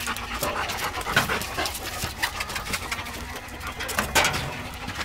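An adult German shepherd and German shepherd puppies panting, with short clicks and scuffs of paws and feet on a concrete path.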